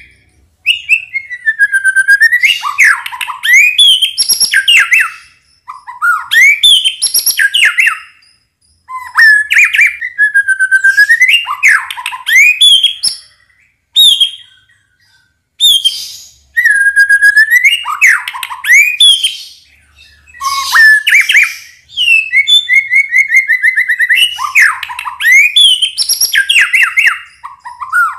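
White-rumped shama (murai batu) singing its full song of the kind used as a lure to get other shamas singing: loud phrases of a few seconds each, with short pauses between them. Many phrases open on a down-and-up whistle, then run into quick high notes and rapid trills.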